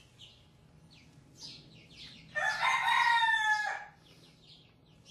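One long animal call of about a second and a half, starting about two and a half seconds in and falling slightly in pitch. Small birds chirp briefly throughout.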